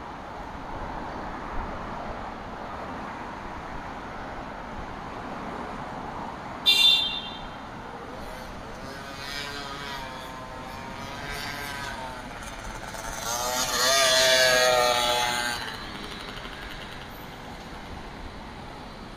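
City street traffic: steady road noise, with a car passing close, its engine note wavering and swelling to a peak a little past the middle. A brief sharp high-pitched chirp about seven seconds in.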